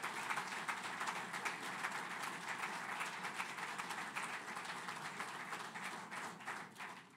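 Audience applauding: many hands clapping in a dense, even patter that dies away near the end.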